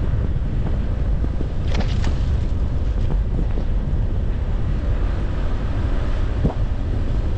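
Car driving on an unplowed, snow-covered street: a steady low rumble of tyres on packed snow. A few brief clicks cut through it, the sharpest about two seconds in.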